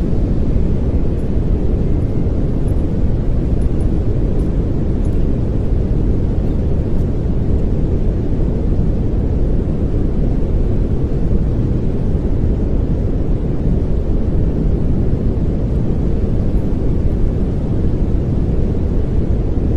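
Steady pink noise, an even hiss weighted toward the low end, unchanging throughout.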